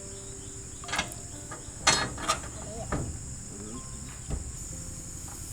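Pine firewood crackling in a cooking fire, with a few sharp pops, the loudest about two seconds in; this wood is known to spit a lot. Crickets chirp steadily behind it.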